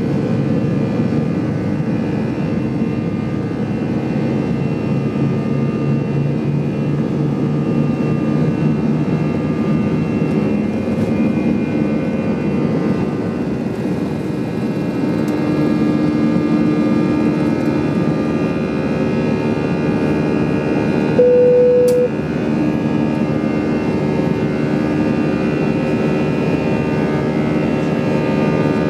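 Airbus A319's CFM56-5A jet engines heard from inside the cabin at takeoff power: a loud, steady engine noise with humming fan tones as the aircraft rolls down the runway and lifts off into the climb. A short steady tone sounds briefly about two-thirds of the way through.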